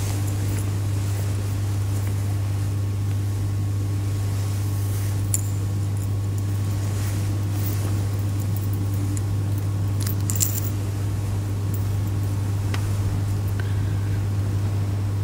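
A steady low hum, with a fainter higher tone above it and a few soft clicks about five, ten and thirteen seconds in.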